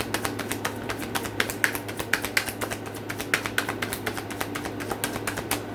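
Tarot cards being shuffled by hand: a rapid, uneven run of light clicks as the cards strike one another.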